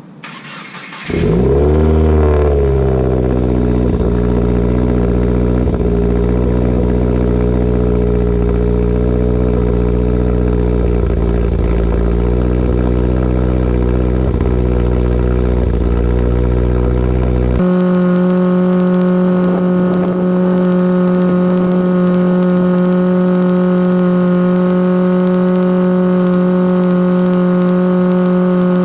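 Subaru boxer flat-four cold start: the starter cranks for about a second, the engine catches, flares up in revs and settles to a steady fast idle. About eighteen seconds in the sound switches abruptly to a different steady droning hum.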